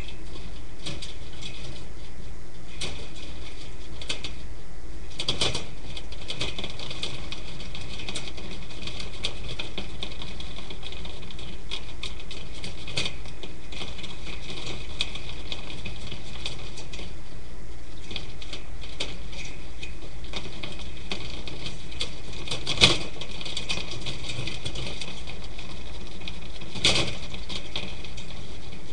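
Steady hiss with scattered light clicks and ticks, and one sharper click about 23 seconds in.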